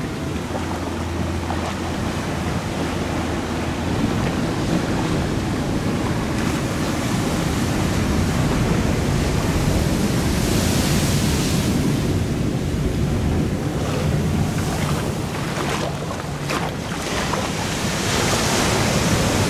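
Ocean surf washing in, with wind buffeting the microphone. The wash swells louder about ten seconds in and again near the end.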